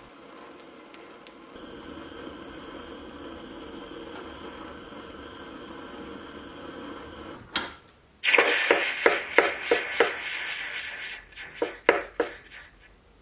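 A gas torch hisses steadily on a silver-steel screwdriver tip heated until non-magnetic. About eight seconds in, the hot tip is quenched in a jar of liquid to harden it, and it sizzles and crackles loudly for a few seconds before dying away.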